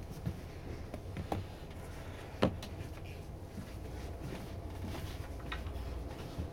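Low steady rumble of a train hauled by a DB Class 218 diesel-hydraulic locomotive, with a few sharp clacks, the loudest about two and a half seconds in. The rumble grows slightly in the second half as the train starts off.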